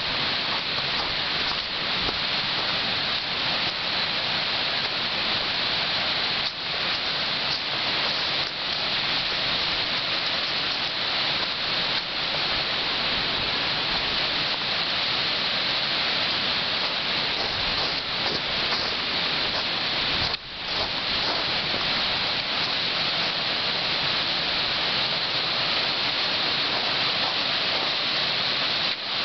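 Steady rushing of a fast-running woodland stream, an even wash of water noise with one brief dip about two-thirds of the way in.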